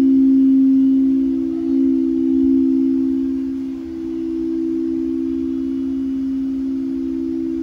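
Frosted quartz crystal singing bowls sung by mallets circled around their rims: two steady held tones a little apart in pitch sound together, swelling slightly near the start and again about two seconds in.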